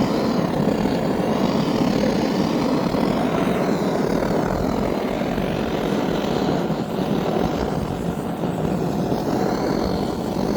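Gas torch flame running steadily, a constant rushing roar as it chars the wood surface.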